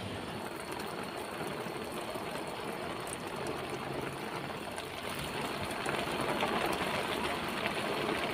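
Steady rain falling, an even hiss and patter that grows slightly louder a few seconds in.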